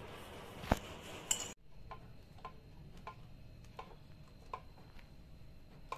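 A sharp clink of kitchenware, then faint, irregular light ticking, roughly one to two ticks a second, from a George Foreman Lean Mean Fat Grilling Machine electric contact grill. The grill is shut on sandwiches and heating up.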